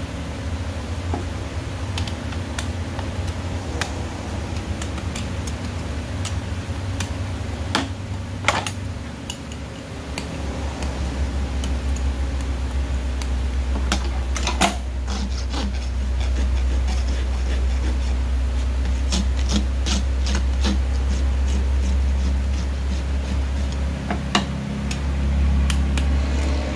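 Scattered sharp metal clicks and taps from a farrier's hand tools working the nails of a freshly fitted horseshoe, including a quick run of taps a little past the middle. Under them runs a steady low mechanical hum that drops slightly in pitch about ten seconds in.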